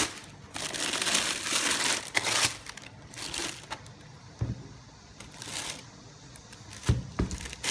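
Tissue wrapping paper crinkling in several bursts as it is folded back inside a cardboard shoebox, opening with a sharp crackle. There are a few soft thuds as the sneaker is handled in the box.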